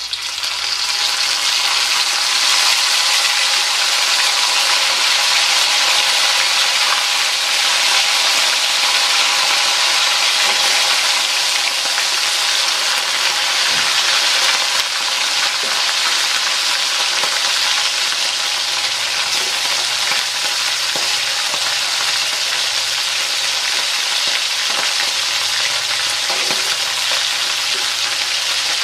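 Pieces of boiled, tender beef (empal) frying in hot oil in a wok: a loud, steady sizzle that swells over the first second or two after the wet meat goes in.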